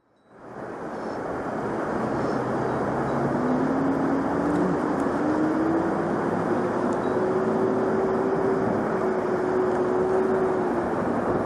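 Steady rush of a mountain stream's flowing water, coming in abruptly at the start. Under it, a faint drone slowly rises in pitch over several seconds.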